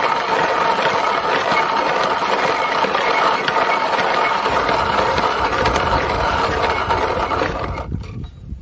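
Hand-cranked coffee mill grinding coffee beans: a steady grinding rattle that stops abruptly near the end.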